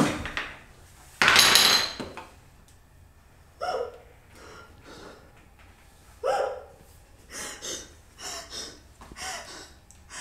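A person's ragged gasping breaths: a loud rasping gasp about a second in, then short catching gasps every couple of seconds, several smaller ones near the end.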